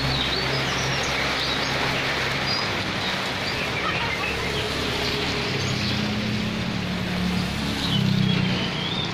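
Steady rain falling, with small birds chirping now and then. A motorcycle's engine fades away near the start, and another comes up about six seconds in, its tyres on the wet road.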